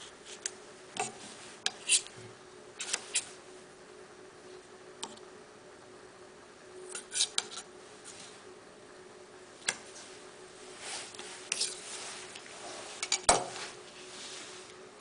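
A carving knife cutting and scraping at the carving: irregular sharp clicks and short scrapes, the loudest a little before the end, over a steady faint hum.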